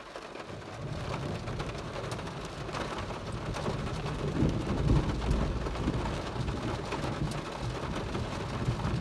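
Heavy rain drumming on a car's metal roof, heard from inside the car, with a low roll of thunder that swells to its loudest about halfway through and then eases.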